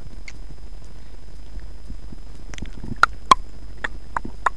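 Steady low electrical hum with a faint high whine, and five or six sharp clicks spaced irregularly from about three seconds in.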